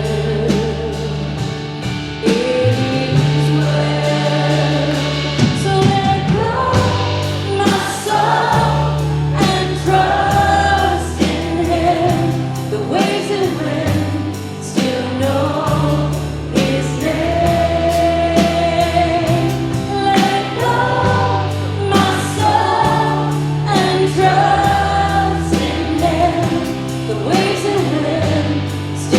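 Worship music: a group of voices singing over a band with bass and a steady beat.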